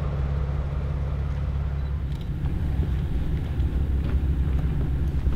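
Jeep Wrangler engine running steadily, a low rumble, with a few faint knocks.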